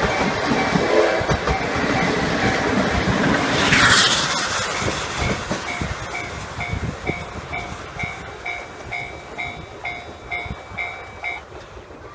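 Train hauled by a DE10 diesel locomotive, with old-type passenger coaches, rolling past with wheels clicking over the rail joints. The noise peaks about four seconds in and then fades. A level-crossing warning bell dings about twice a second and stops near the end.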